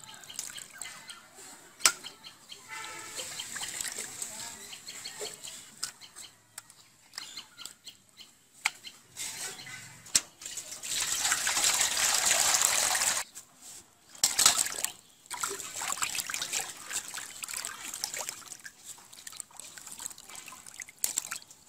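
Water splashing and sloshing as fish steaks are washed by hand in a steel bowl, with small clicks and knocks against the metal. About eleven seconds in, water pours steadily for about two seconds as the bowl is rinsed and refilled.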